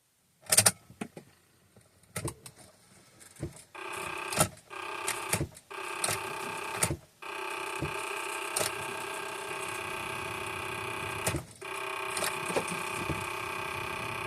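A few sharp clicks, then a steady motor hum inside a car that starts about four seconds in and cuts out briefly a few times.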